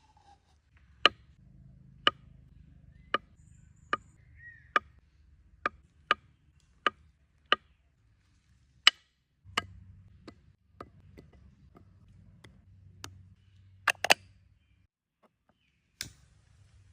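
A series of sharp chopping knocks, roughly one a second and irregular, with a quick double knock near the end.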